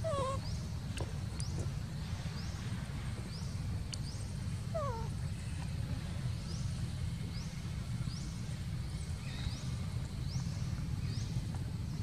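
Two short falling animal calls, one at the start and one about five seconds in, over a steady low rumble. A high rising chirp repeats about once a second.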